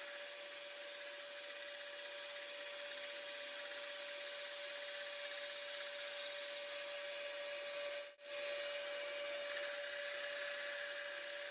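Machine tool running steadily, with one constant whine and an even hiss of cutting or rubbing over it. The sound drops out very briefly about 8 seconds in.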